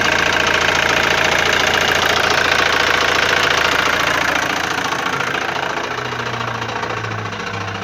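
Opel Astra H 1.7 CDTI four-cylinder turbodiesel engine running just after starting, with the strange noise it makes on start-up. It is loud and dense at first and eases off about four to five seconds in.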